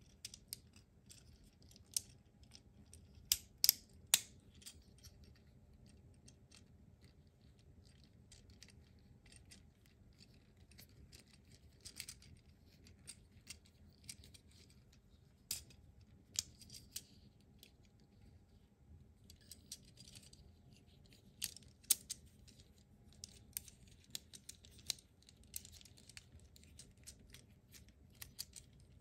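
Small plastic clicks and snaps, scattered and irregular, as the joints and panels of a plastic transforming ambulance robot toy are folded and pushed into place by hand. The sharpest clicks come a few seconds in and again about two-thirds of the way through.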